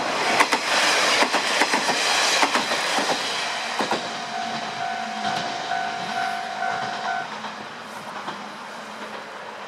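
A diesel railcar passing over a level crossing, its wheels clattering over the rail joints for the first few seconds. The crossing's electronic warning bell rings on in a repeating ding and stops about seven seconds in, once the train has cleared.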